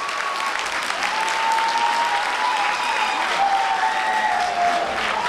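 Theatre audience applauding, with a few long, held cheers rising above the clapping.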